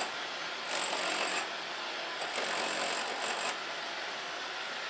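Pneumatic chisel hammering into a sandstone rock face, run in two bursts: a short one about a second in and a longer one from about two to three and a half seconds.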